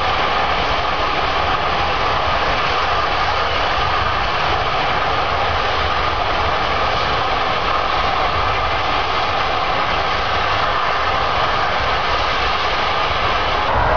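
Uncontrolled well blowout on a land drilling rig: gas and fluid jetting from the well with a loud, steady rushing hiss.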